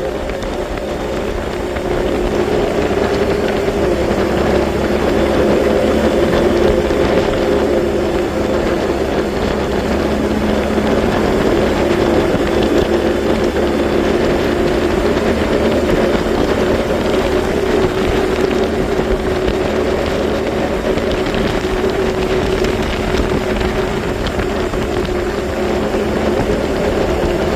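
Tractor engine running steadily, a constant droning hum.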